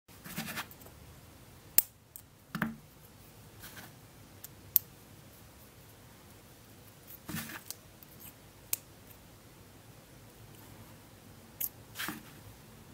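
Cosmo Fit Point Plus plastic soft-tip dart points being handled: a handful of sharp plastic clicks, spread irregularly, as tips are snapped off their plastic runner and one is fitted into a dart barrel, with short rustles of fingers on the plastic.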